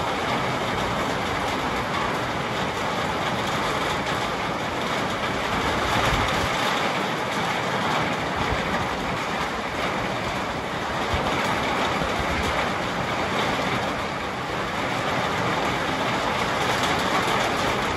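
Heavy rain falling in a downpour, a steady even rush of noise.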